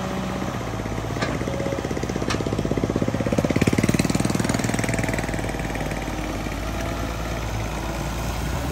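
Pontoon-mounted excavator's diesel engine running with a fast, even pulse, growing louder about three to four seconds in as the boom lifts the duckbill bucket out of the water, then settling back. Two short knocks come in the first few seconds.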